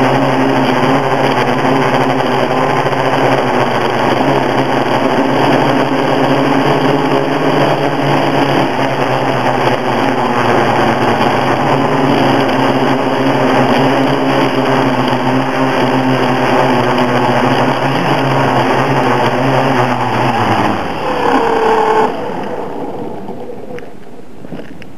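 Onboard sound of a multirotor drone's electric motors and propellers, a loud, steady hum. About 21 seconds in the pitch falls away and the sound drops sharply as the craft sets down and the motors spin down.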